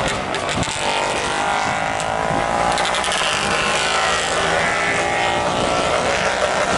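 Several historic racing motorcycles running together as they ride up through a bend, their engine notes overlapping. One note falls in pitch about three seconds in.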